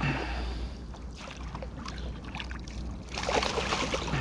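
Water splashing and churning as a snagged stingray thrashes at the surface beside a kayak while a landing net is pushed at it. The splashing gets heavier about three seconds in, over a steady low wind rumble on the microphone.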